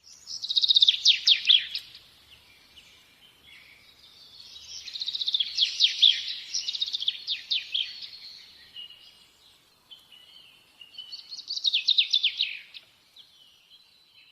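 A songbird singing in three phrases of rapid, high chirps and trills, the middle one the longest, with softer chirping between them.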